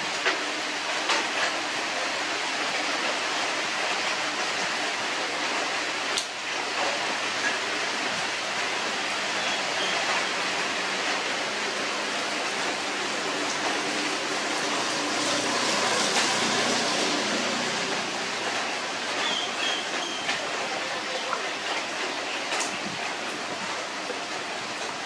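Steady hiss of falling rain, with a few sharp clicks scattered through it.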